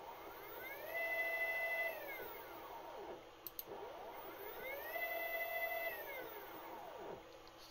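Bench stepper motor, driven through a stepper driver by a GRBL controller, making two moves: each time its whine rises in pitch as it accelerates, holds steady for about a second, then falls as it decelerates to a stop.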